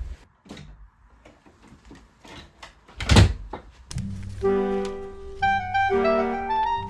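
Light clicks and knocks from a Lego-brick 3x3 cube being handled and turned, with one loud knock about three seconds in. About a second later, background music starts: a melody of held notes over a steady bass.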